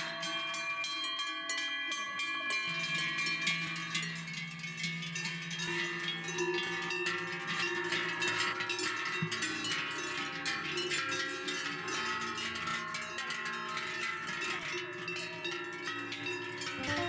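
Many cowbells on a herd of cows ringing together at different pitches, a continuous overlapping jangle.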